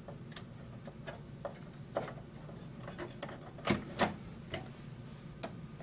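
Scattered light clicks and taps as a network interface card and its metal bracket are worked into a motherboard expansion slot in an open computer case, with two sharper clicks a little past halfway.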